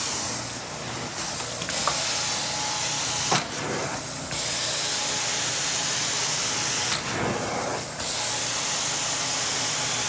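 Carpet-cleaning extraction wand working a rug: a loud, steady hiss of suction and water spray, its tone shifting every few seconds as the wand strokes change.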